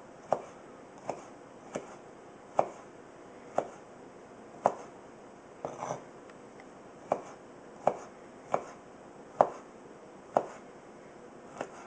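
Entrek USA Badger fixed-blade knife slicing pork sausage, the blade tapping sharply down on the cutting surface at the end of each slice, about once a second.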